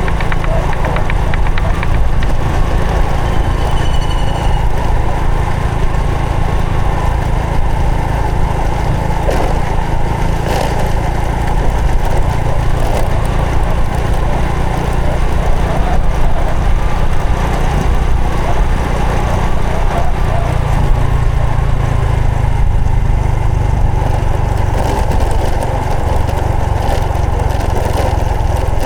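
Honda Supra X 125 FI's single-cylinder four-stroke engine running steadily while riding, with a strong steady low rumble underneath.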